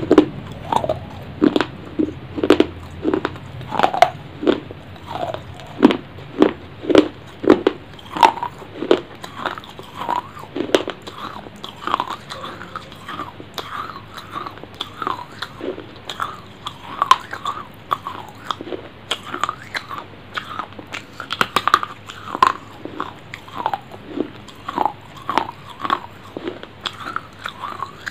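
Close-miked chewing and biting: a person eating small pieces of food by hand, with short wet mouth clicks and smacks about once or twice a second.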